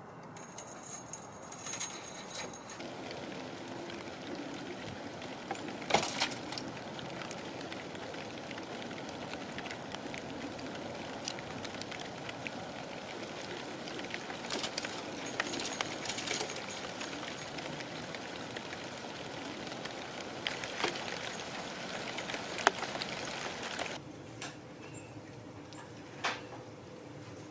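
Steady outdoor background noise with a few scattered sharp clicks; it drops noticeably quieter about 24 seconds in.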